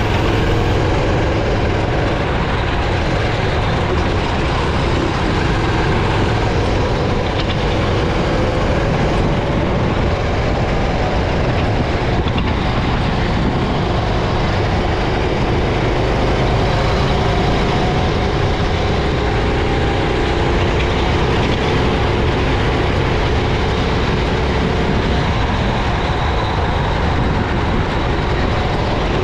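Racing kart's engine heard onboard while lapping, with its pitch rising and falling as the throttle opens and closes through the corners, over a steady loud rumble.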